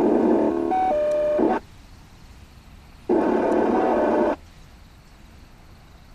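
Scanner radio receiving keyed transmissions: a hissy burst of static that cuts in and out abruptly, with a quick run of beeping tones about a second in, then a second burst of static about three seconds in.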